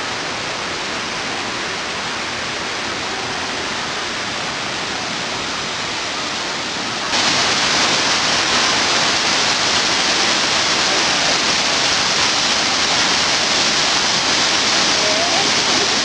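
Steady rush of Shiraito Falls, a broad curtain of many thin waterfalls, and the rocky stream below it. The rush turns louder and brighter about seven seconds in.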